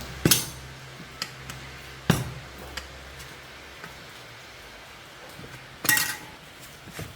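Metal tools and parts clinking and knocking against metal: a few sharp strikes, the one about six seconds in ringing briefly, with small ticks between. A steady low hum runs under them and stops about three seconds in.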